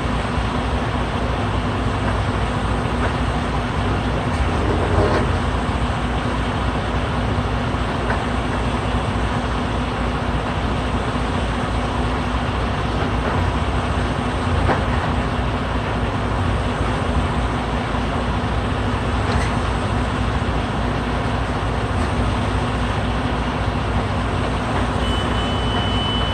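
Heavy diesel engine running steadily with a low rumble, with a few light knocks here and there.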